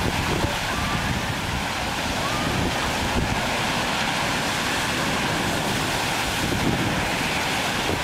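Heavy storm surf breaking and washing in, with strong wind rumbling on the microphone; a steady, even noise with no sharp events.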